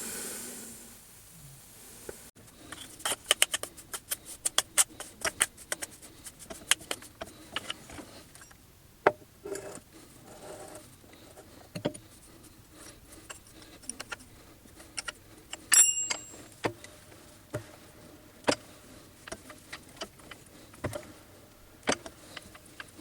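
Metal tooling being handled on a bench: many sharp clicks, clinks and taps, densest in the first few seconds, with a brief bright metallic ring about two-thirds of the way through.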